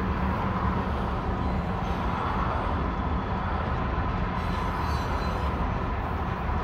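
Union Pacific mixed freight train's boxcars rolling past: a steady rumble of steel wheels on rail.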